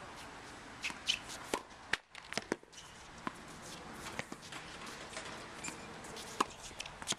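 Tennis balls being hit and bouncing on a hard court: a string of sharp, irregularly spaced pops and knocks, with a few footsteps.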